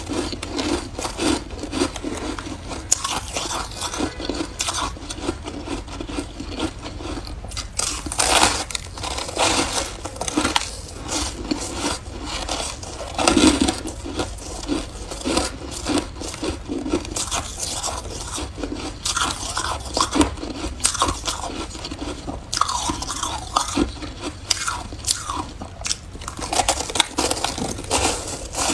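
A person biting and chewing blocks of shaved ice: a continuous run of crisp crunches, with louder crunches about eight and thirteen seconds in.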